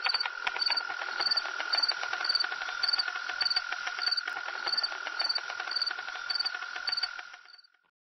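A steady, cricket-like trill with a faint higher pip about twice a second, cutting in and out abruptly like an added sound effect.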